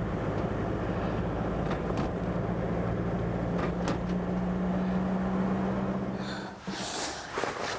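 Car engine and road noise heard from inside the cabin while driving at a steady speed, with an even low hum. About six and a half seconds in the hum fades away and a few brief scuffing sounds follow.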